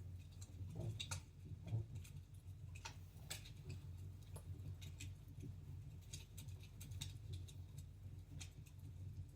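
Wood fire crackling in a fireplace: quiet, irregular pops and snaps over a low steady hum.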